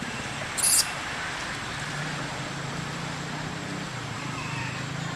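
Steady outdoor background noise with a low hum. A brief, sharp hiss comes about a second in and is the loudest sound, and a few faint high chirps come near the end.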